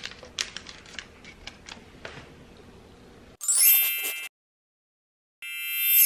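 A few light clicks and taps, then a bright, sparkling chime sound effect; after a second of dead silence a second chime swells louder and cuts off abruptly.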